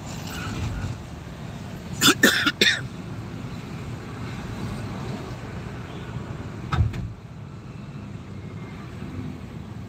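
Steady road and engine rumble heard from inside a moving car. About two seconds in comes a quick run of three loud coughs, and a single short knock sounds near seven seconds.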